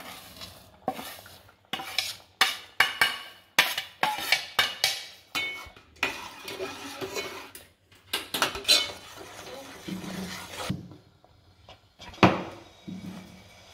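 Steel spoon stirring semolina into boiling water in an aluminium pot, knocking and scraping against the pot again and again in quick, irregular clinks. The stirring pauses briefly near the end, then one loud clink follows.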